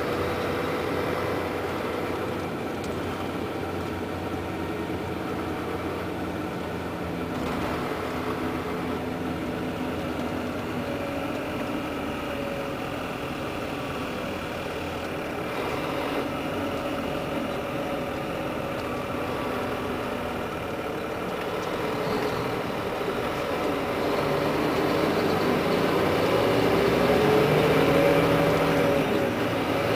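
Volvo B12R coach's rear-mounted straight-six diesel engine running, its note drifting up and down in pitch and growing louder about three-quarters of the way through.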